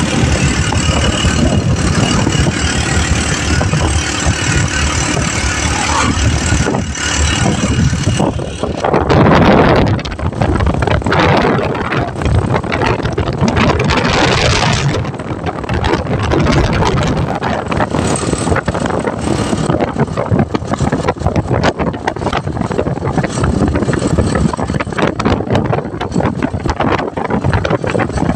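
Motorcycle engine of a sidecar tricycle running steadily while under way, with road and wind noise buffeting the microphone. About a third of the way in a louder rush swells for several seconds, and from then on the wind buffeting is rougher.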